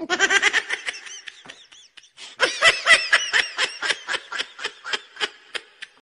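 Laughter in two bouts of rapid, evenly repeated 'ha-ha' pulses, the second bout starting about two seconds in and slowing and fading toward the end.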